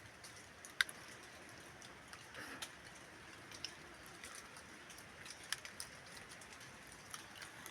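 Quiet jungle ambience: a faint steady hiss with scattered sharp ticks and clicks, the loudest a little under a second in.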